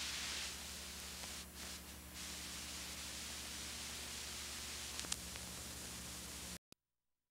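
Faint hiss and low hum from a blank stretch of videotape after the recording ends, with a sharp click about five seconds in. It cuts off suddenly near the end into silence.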